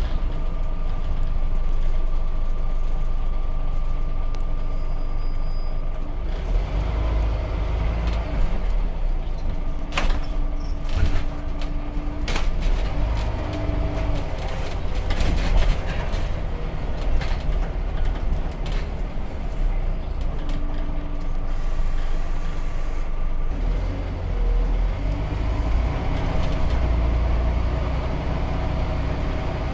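Inside a 2003 Scania N94UD Omnidekka double-decker bus: its diesel engine runs with a steady low rumble that gets heavier a few seconds in and again near the end, and scattered sharp rattles and knocks come through the body in the middle.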